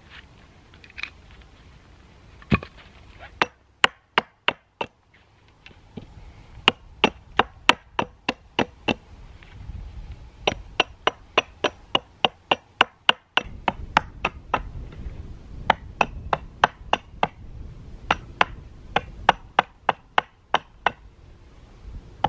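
Axe chopping into a fallen dead tree trunk: sharp chops, a few scattered ones at first, then quick runs of about two to three a second from about six seconds in.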